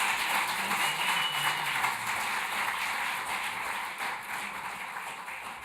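Audience applauding after the song ends, with a short whistle about a second in; the applause fades out near the end.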